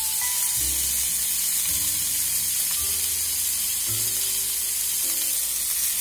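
Lamb chops sizzling in oil in a hot frying pan as their second side sears: a steady, even hiss. Background music with short held notes plays under it.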